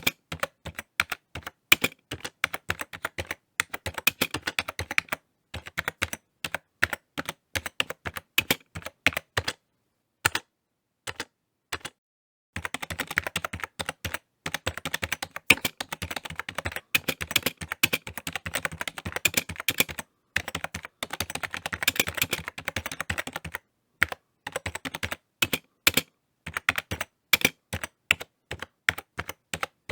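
Typing on a computer keyboard: fast runs of key clicks broken by short pauses, the longest a gap of about three seconds near the middle.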